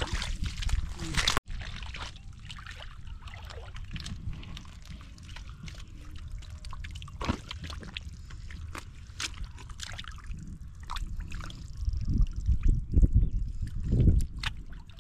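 Hands groping and sloshing through shallow muddy water and soft mud, with scattered small splashes and wet squelches; the sloshing grows louder and heavier near the end.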